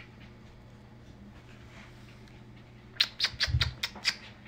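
Corgi puppy giving a quick run of about seven sharp, high-pitched yips about three seconds in, with one dull thump among them.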